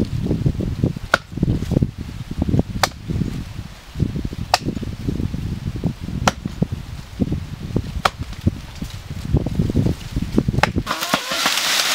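A tree trunk being chopped by hand: sharp blows of a blade biting into the wood, about six of them, one every second and three-quarters or so, over a constant low rumble. Near the end the chopping stops and a steady hiss takes over.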